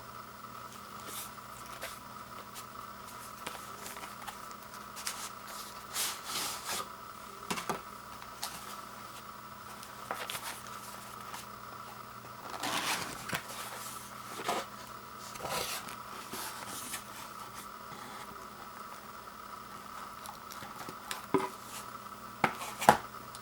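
A doorbell kit's retail box and packaging being handled and opened by hand: irregular scraping, rustling and tearing, with a few sharp clicks near the end.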